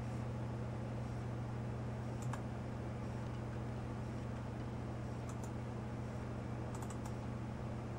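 Steady low hum with a few faint computer mouse clicks: one about two seconds in, another just past five seconds, and a quick run of clicks near seven seconds.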